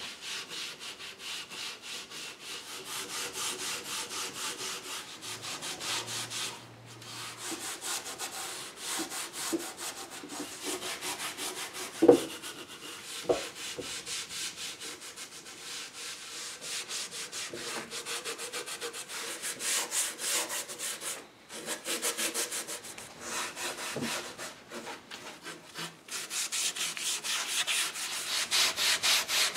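A gray Scotch-Brite pad scrubbing the wet, cleaner-soaked finish of an oak chair in quick back-and-forth strokes. A couple of sharp knocks come about halfway through.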